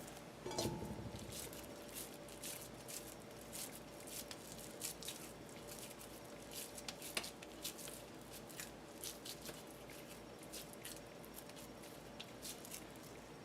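Hands shaping raw ground beef into patties: faint, irregular soft pats and squishes of the meat, with a low thump just after the start.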